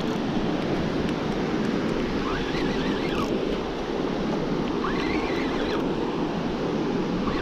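Surf breaking and washing steadily up a sandy beach, with wind rumbling on the microphone.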